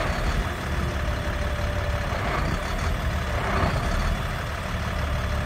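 Boom truck's engine running steadily at idle, a low rumble with a faint steady whine over it while the hydraulic boom is worked.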